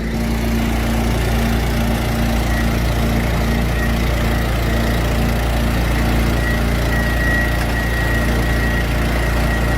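Trilo T1 truck-mounted vacuum running steadily: a constant engine drone with a thin high whine from the suction fan on top.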